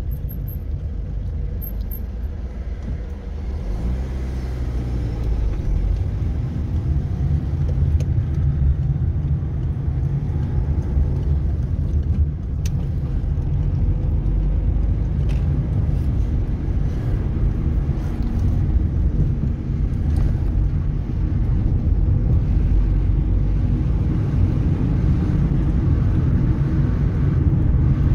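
Car engine and tyre rumble heard inside the cabin while driving, growing louder about four seconds in.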